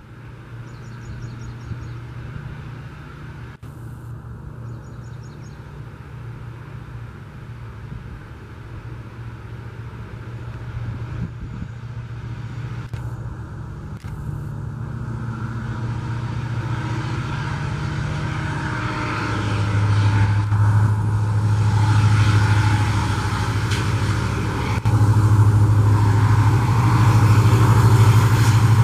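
Diesel locomotive engine running as it hauls a train, a steady low drone that grows louder as the train approaches. Two short, faint bird chirps come early on.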